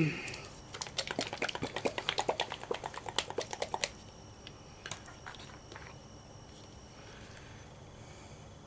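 A small plastic bottle of Kindyglitz Crystallina glitter paint being shaken, giving quick rattling clicks about nine times a second for roughly three seconds, followed by a few single taps.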